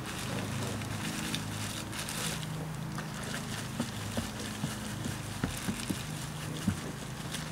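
A plastic bag crinkling as crushed grain is poured from it into a cooler mash tun of hot water. From about three seconds in, a wooden paddle stirs the mash, with scattered short knocks against the cooler, over a steady low hum.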